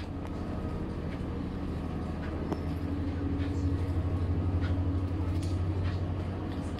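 Ferry's engine running steadily at standby, a low pulsing drone that swells a little midway, with a few light clicks on top.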